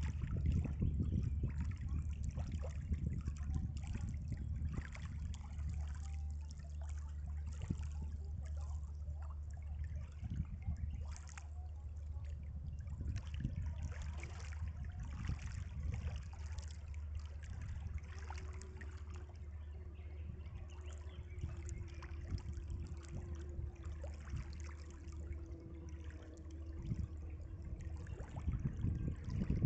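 Small waves lapping and trickling at the edge of a shallow lakeshore in irregular little splashes, over a steady low rumble. A faint steady hum joins in for several seconds past the middle.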